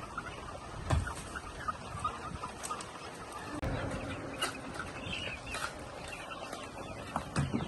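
Chickens clucking, with a longer call a little past halfway and a few light knocks.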